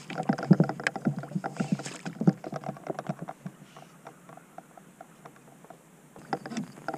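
Kayak paddling: paddle strokes and clunks of the paddle and gear against the fishing kayak, busy for the first few seconds, thinning out, then starting again near the end.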